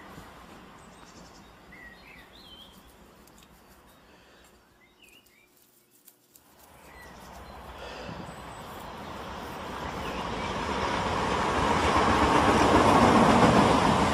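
A train running by: its rumble fades away to almost nothing about halfway through, then comes back and grows loud near the end. A few short high chirps sound in the first half.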